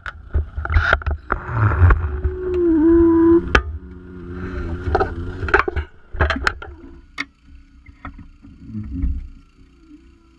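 Hydraulic rescue spreaders pinching and peeling a car's sheet-metal body: the metal creaks and groans as it bends, with sharp cracks and pops as it gives way. Underneath runs a steady low rumble. In the second half it settles into a steadier, quieter hum with only scattered pops.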